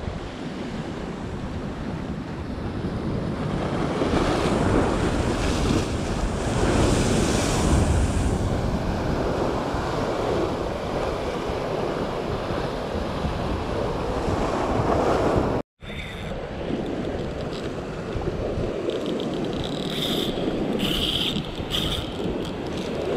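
Sea surf washing and breaking against a rocky shore, with wind buffeting the microphone. The rush swells a few seconds in, and the sound cuts out for an instant about two-thirds of the way through.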